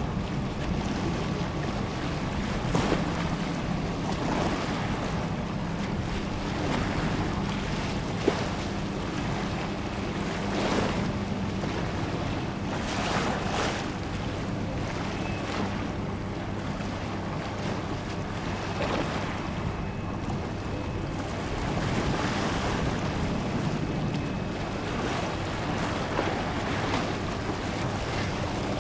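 Wind buffeting the microphone and harbour water lapping, swelling every few seconds, over a steady low hum.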